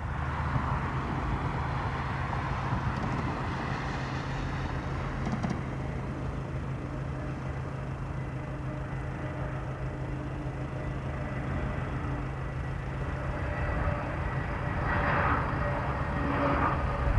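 Airbus A320neo on final approach to land: a steady jet-engine whine over a low hum, growing a little louder near the end as the airliner comes closer.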